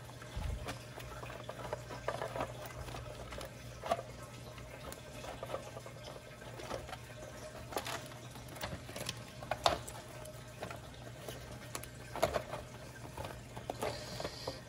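Handling noise of the singing fish's rubbery skin being pulled and worked over its plastic body: irregular crackles, rustles and small plastic clicks.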